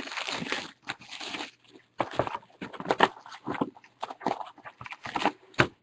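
Sealed box of trading-card packs being torn open by hand: irregular crinkling, tearing and scraping of the cardboard box and its wrapping, in short bursts of uneven length.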